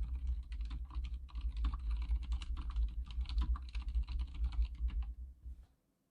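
Continuous fast typing on an Archon K79 full-size keyboard with silent red switches, a dense run of muted keystrokes with dull low thuds that stops about five seconds in.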